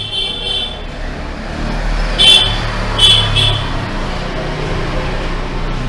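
Steady low rumble, like road traffic outside, with two short high-pitched sounds about two and three seconds in.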